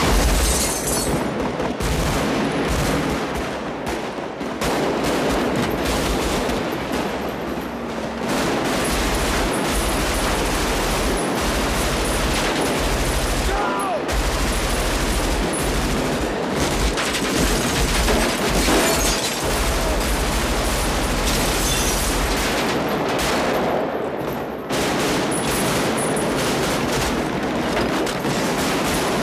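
Sustained automatic rifle fire exchanged in a street gunfight: dense, near-continuous bursts of shots with a couple of brief lulls.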